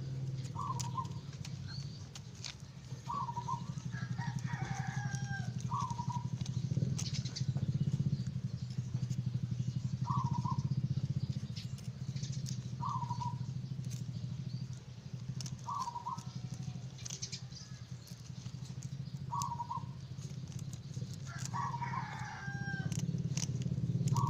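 A rooster crows twice, about four seconds in and again near the end. Short one-note calls repeat every two to three seconds between the crows. A steady low hum and faint scratchy clicks run underneath.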